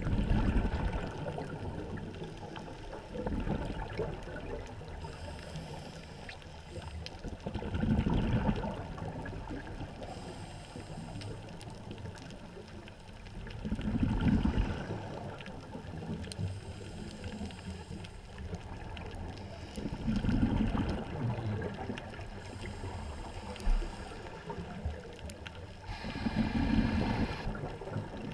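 Scuba diver breathing through a regulator underwater: a hiss on each inhale and a rumble of exhaled bubbles, repeating about every six seconds.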